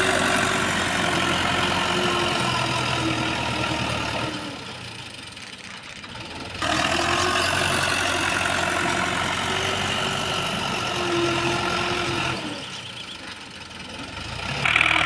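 Massey Ferguson 260 tractor's diesel engine running steadily as it works a front levelling blade and a rear cultivator through loose soil. The engine sound falls away twice for a couple of seconds and comes back abruptly.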